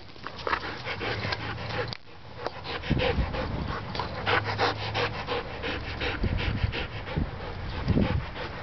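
Siberian husky panting in quick, rhythmic breaths close to the microphone.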